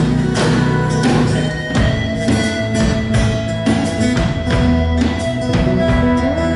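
Live band playing an instrumental passage of a French pop song, no singing: drums keep a steady beat, about two hits a second, under guitars and held melody notes.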